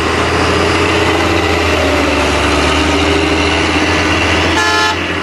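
Heavy truck engine running steadily, with a short horn toot near the end.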